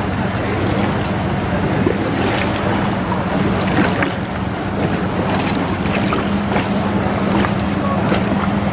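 Engine running with a steady low hum, under wind buffeting the microphone.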